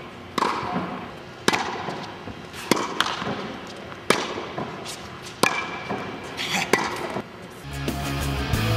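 Tennis ball struck by a racquet and bouncing on the court: sharp, echoing pops about once a second, two of them close together, ringing in a large indoor tennis hall. Rock music comes in near the end.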